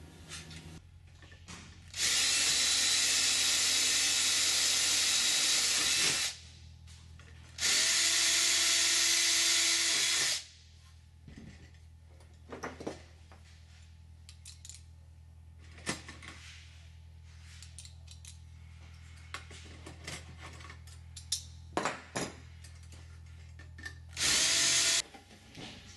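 Cordless drill running in three bursts: about four seconds, then nearly three seconds, then a short one near the end. It is drilling the holes in an aluminium spar out to their final rivet and bolt size. Small clicks and taps of handling and hand deburring come between the bursts.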